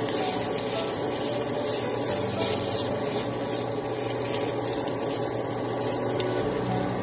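Fried rice sizzling in a nonstick pan while a plastic rice paddle stirs and scrapes through it, over a steady hum.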